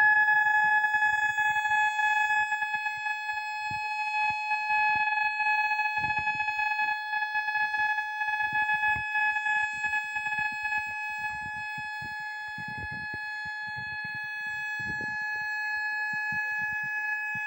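Kuwaiti civil-defence siren sounding one continuous steady tone, the all-clear signal that follows the rising-and-falling danger warning. The tone eases slightly in loudness about two-thirds of the way through.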